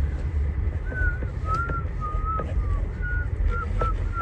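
A person whistling a short tune in clean, slightly sliding notes, starting about a second in, over a steady low vehicle rumble.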